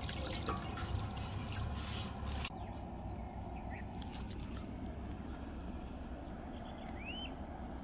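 Water splashing and pouring into a shallow aluminium basin of eggs, stopping abruptly about two and a half seconds in. Then a low steady outdoor background, with a single bird chirp near the end.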